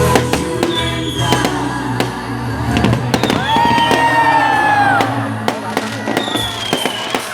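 Fireworks going off: repeated sharp bangs and crackles over loud background music.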